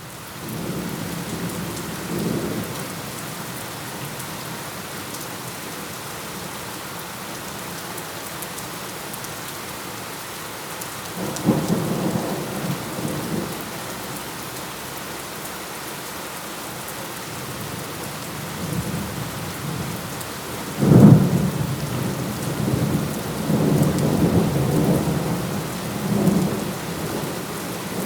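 Steady rain with rolling thunder: low rumbles about two seconds in and again around twelve seconds, then a sharp thunderclap, the loudest sound, about twenty-one seconds in, followed by more rumbling.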